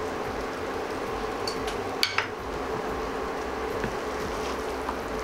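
A steady hiss with a low hum under it, and one sharp metal clink, a utensil against the cooking pan, about two seconds in.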